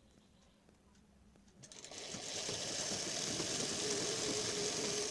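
Sewing machine starting up about one and a half seconds in and running at a steady speed, stitching a fall strip onto a saree's edge.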